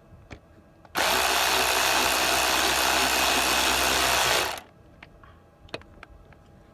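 A handheld power tool runs continuously for about three and a half seconds, starting about a second in and cutting off sharply. Light clicks come before and after it.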